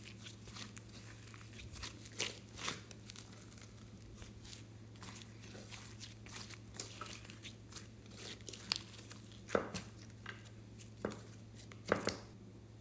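Glossy yellow slime being stretched, folded and squeezed by hand: irregular sticky pops, crackles and tearing sounds, with a few louder pops about nine and twelve seconds in.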